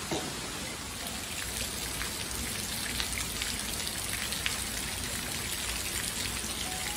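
Heavy rain falling on a tiled patio and lawn: a steady hiss made of many separate drops ticking.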